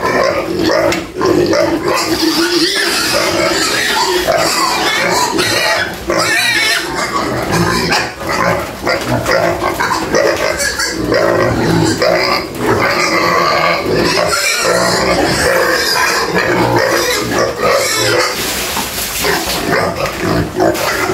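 Domestic pigs squealing and grunting loudly and without a break, the clamour of hungry pigs waiting to be fed.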